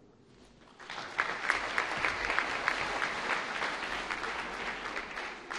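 Audience applauding, starting about a second in as a dense patter of many hand claps and easing off a little near the end.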